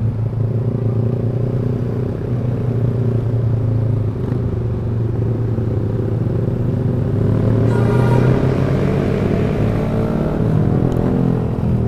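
Yamaha R15 V3's single-cylinder engine running through a loud aftermarket Proliner exhaust while riding, the revs rising about eight seconds in.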